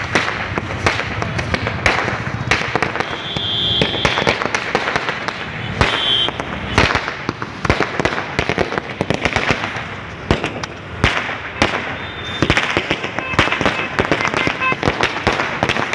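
A long string of firecrackers on the pavement going off in a rapid, uneven stream of sharp bangs that carries on without a break.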